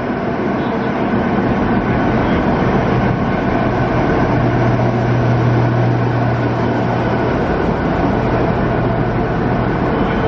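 The Spirit of Queensland diesel tilt train arriving along the platform: a steady rumble of the train rolling in, with the power car's low engine hum swelling as it passes, strongest about halfway through, as the carriages follow.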